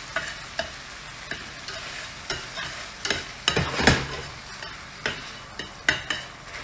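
Chicken and melting butter sizzling in a stainless steel pot while a utensil stirs, scraping and clicking irregularly against the metal; the loudest scrape comes just under four seconds in.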